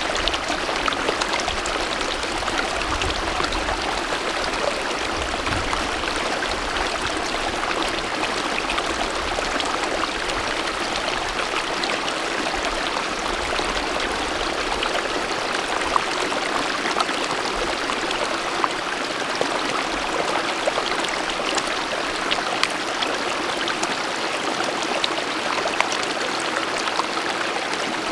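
Small mountain stream running over rocks close by, a steady rush of water.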